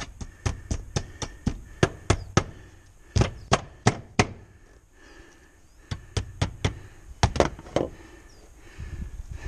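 Claw hammer striking the thin sheet-metal roof panel in quick runs of sharp taps, about four a second, with a break about halfway through. The taps are bending the cut metal tabs over the edge of the round hole for the vent.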